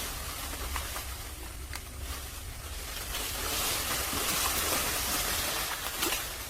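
Steady rushing noise, like wind on the microphone, with a low rumble underneath; it grows louder for a couple of seconds in the middle.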